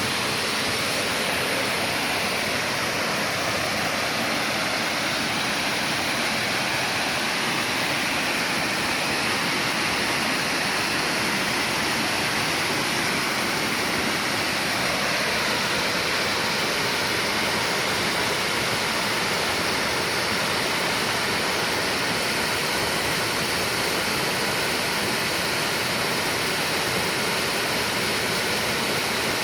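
Mountain valley stream rushing over rocks: a steady, loud roar of water.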